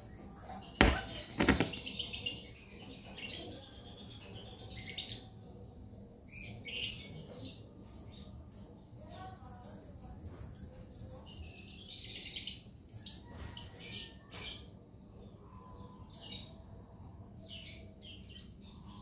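A bird chirping and trilling in repeated high calls, some drawn out over a couple of seconds, with two sharp knocks about a second in.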